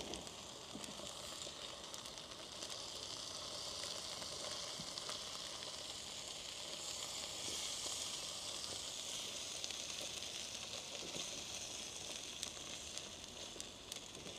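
Chicken and vegetable curry sizzling steadily on a hot flat griddle plate, with a splash of water just added boiling off in the pan. The sizzle swells for a few seconds in the middle, and a spatula stirring the food gives occasional light scrapes.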